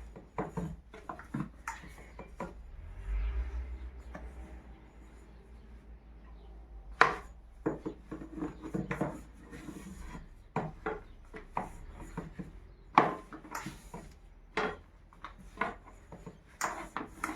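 Kitchen work sounds: irregular knocks and clatter of utensils and cookware on a wooden surface, with rubbing and scraping, and a couple of sharper strikes.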